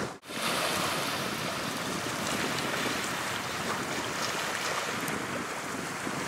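Small waves lapping and splashing against the shoreline, with wind buffeting the microphone. The sound drops out for a moment right at the start.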